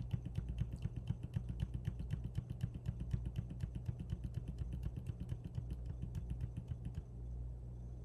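Computer keyboard key tapped rapidly and evenly, about four presses a second, stepping through photos one by one; the tapping stops about seven seconds in. A low steady hum lies underneath.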